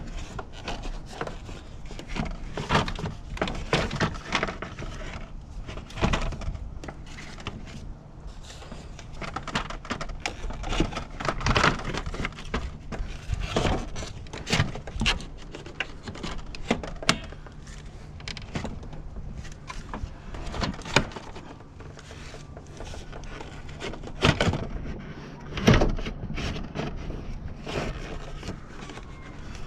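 Irregular knocks, clacks and rattles of plastic and metal engine-bay parts being handled and shifted by hand, over a faint steady low hum. The loudest knocks come about twelve seconds in and near the end.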